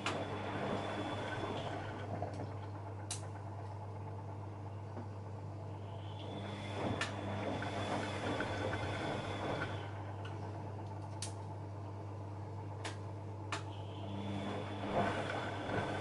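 Bosch Maxx WFL 248Y front-loading washing machine tumbling a load: the drum motor whines and turns the wet laundry with sloshing for a couple of seconds, pauses, then turns again, three times in all. A steady hum runs underneath, and a few sharp clicks fall in the pauses.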